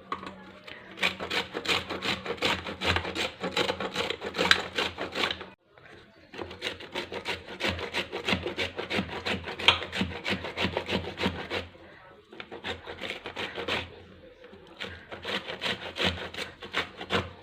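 Peeled raw green mango being grated on a grater: quick, rhythmic rasping strokes in several runs, with short breaks about five and a half, twelve and fourteen and a half seconds in.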